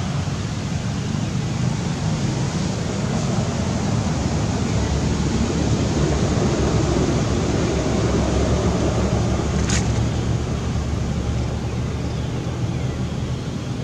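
Steady low rumble of wind buffeting the microphone, with one sharp click about ten seconds in.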